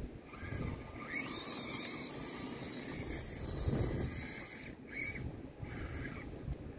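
Axial SCX24 micro RC crawler's small brushed motor and metal transmission gears whining on and off as it crawls over boards and dirt, over low wind buffeting on the microphone.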